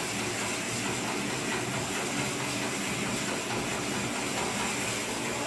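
Steady hiss of room noise with a faint low hum.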